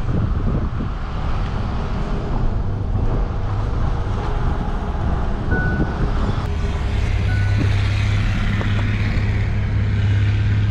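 A heavy vehicle's engine running steadily, its low hum growing stronger about seven seconds in, with two brief faint beeps midway.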